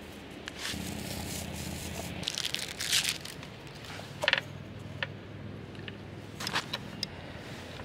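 Crinkling, scraping handling noises with scattered sharp clicks, over a low steady hum that is strongest in the first couple of seconds.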